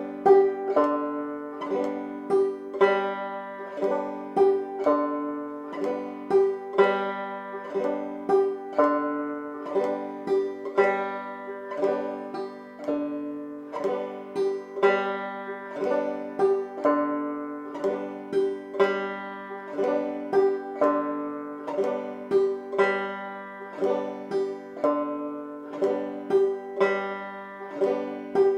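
Five-string banjo in open G tuning played clawhammer (frailing) style at a slow, steady tempo: a repeating pattern of single notes alternating between the third and fourth strings, each followed by a brush strum across the strings.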